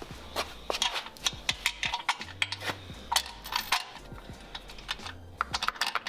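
Quick, irregular metallic clicks and clinks of bolts, nuts and hand tools being worked on a car's rear subframe, over a steady bass line of background music.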